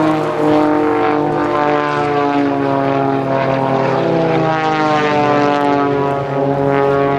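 Propeller-driven aerobatic biplane's piston engine droning steadily overhead, its pitch falling and rising several times as the plane manoeuvres.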